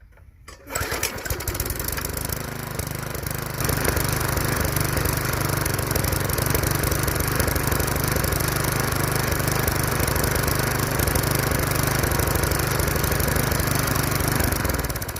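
Bolens front-tine rototiller's small Briggs & Stratton single-cylinder engine starting about half a second in, then running steadily, stepping up louder a little before four seconds in and winding down near the end. It keeps running without dying, a sign that the quick clean-out with primer and starter fluid cleared the clogged carburetor.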